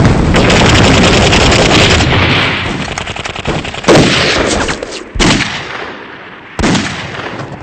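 Battle sound effects: a heavy grenade explosion at the start, followed by dense rapid gunfire and several more loud single bangs.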